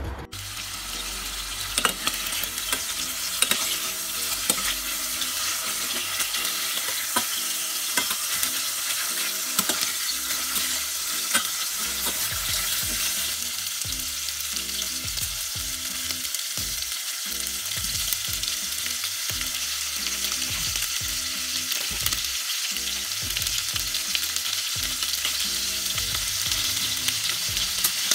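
Meat sizzling as it fries in a stainless steel pot, a steady crackling hiss, with occasional sharp taps. Soft background music plays underneath.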